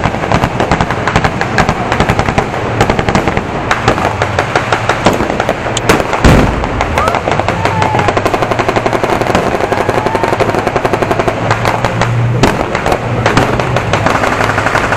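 Blank gunfire from a staged battle: a dense, unbroken clatter of machine-gun and rifle shots. One heavier blast comes about six seconds in.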